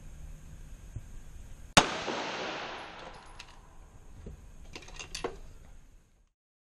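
A single shot from a 9mm pistol firing 124-grain ammunition, with a long echo that dies away over about two seconds in the indoor range. A few light clicks follow about three seconds later.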